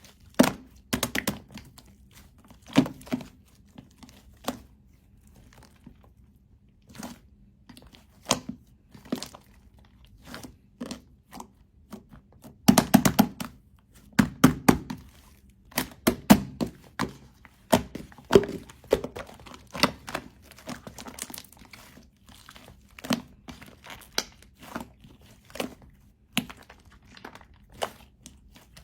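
Shaving-foam slime being squished and pressed by hand, giving irregular runs of crackling, popping clicks with short pauses between them.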